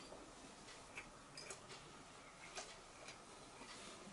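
A few faint, irregular clicks of a metal fork touching a plate during eating, over quiet room tone.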